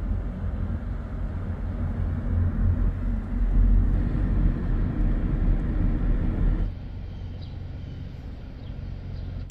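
Steady low rumble of a car driving, road and engine noise picked up from inside the car. It drops noticeably quieter about two-thirds of the way through.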